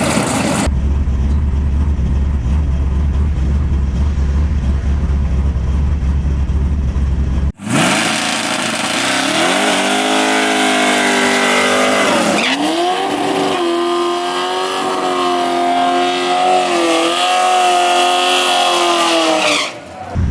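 A steady low rumble for about seven seconds, then the twin-turbo V8 S-10 drag truck at full throttle on a pass. The engine note climbs in pitch, drops briefly at a gear change about twelve seconds in, then holds high until it cuts off near the end.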